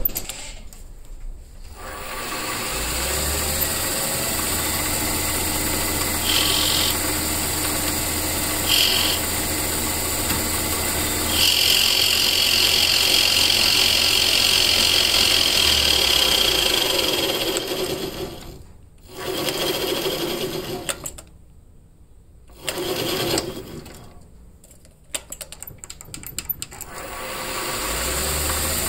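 Small benchtop metal lathe spinning up and running with a steady motor hum, a high whine coming and going while it turns a pool cue shaft. It runs down a little past halfway, with a few short, quieter bursts of sound, and starts up again near the end.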